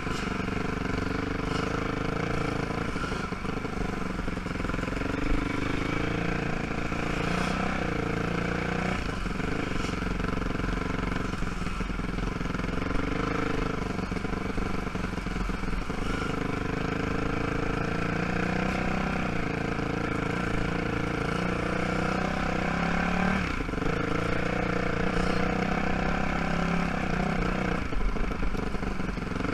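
ATV (quad) engine running at low trail speed, its pitch rising and falling as the throttle is worked, with a few brief knocks and rattles.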